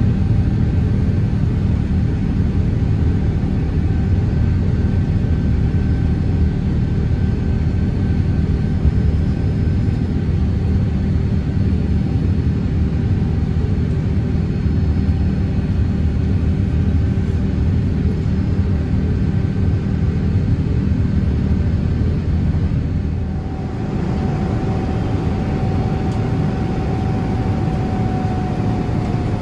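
Cabin noise inside a Boeing 787-9 climbing after takeoff: a steady low rumble of engines and airflow. A little over three quarters of the way through it dips briefly and resumes, now with a faint high steady tone in it.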